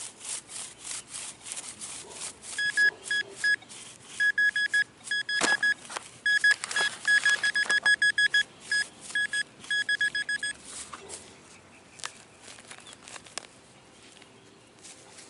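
Metal detector beeping in rapid runs of short, single-pitched high beeps as it homes in on a buried target, amid scraping and knocking of digging in soil. The beeping stops about two-thirds of the way through, leaving a few scrapes and knocks.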